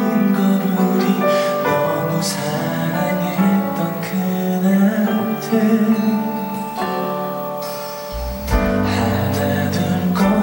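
Instrumental introduction of a slow, tender pop ballad, with sustained pitched notes over a steady accompaniment; a deep bass line comes in about eight seconds in, just after a brief softening.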